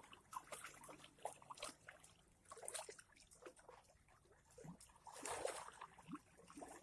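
Faint, irregular lapping and small splashes of lake water.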